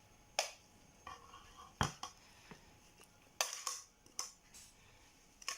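Kitchen utensils being handled: a spoon knocking and clicking against a bowl about half a dozen times, spaced out with quiet between, one deeper knock the loudest.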